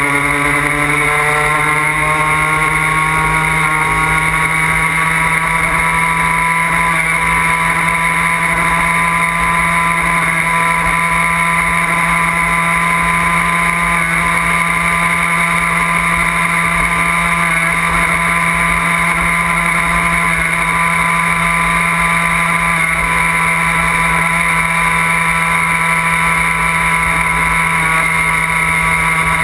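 A Puch Maxi moped's 49 cc single-cylinder two-stroke engine rises in pitch as it picks up speed for about the first second, then runs steadily at cruising speed. Wind rumbles on the microphone underneath.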